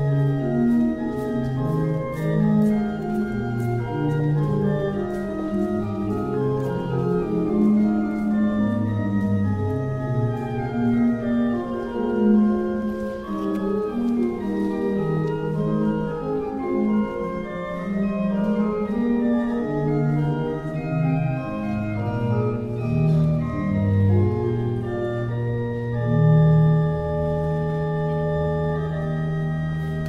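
Organ playing a slow sequence of chords with moving inner and bass notes, settling on one long held chord about four seconds before the end.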